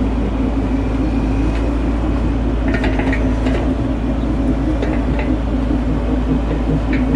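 Bobcat E42 mini excavator's diesel engine running steadily at working speed, with a few short clicks about three seconds in.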